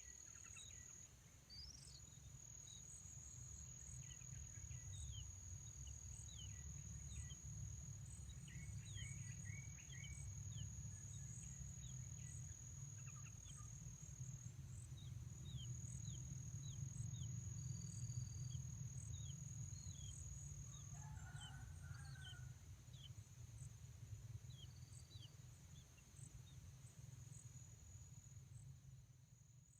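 Faint outdoor birdsong: small birds give many short, quick chirps, scattered throughout, over a steady high-pitched insect drone and a low rumble.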